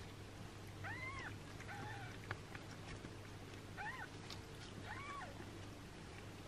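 Six-day-old kitten giving four short, high-pitched, arching mews while its mother cat licks and washes it.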